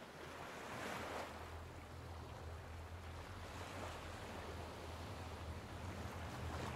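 Small waves washing onto a sandy beach, with a soft surge of surf about a second in, over a steady low rumble.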